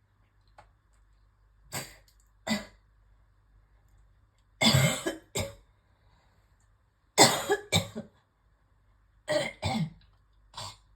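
A woman coughing in a fit: about eight coughs one to two seconds apart, the loudest clusters in the middle. It is a phlegmy coughing fit that came on while she was brushing her teeth.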